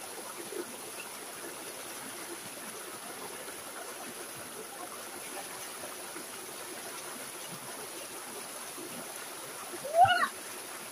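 Stream water running steadily over boulders in a small cascade into a pool. About ten seconds in, a brief, loud call cuts through once.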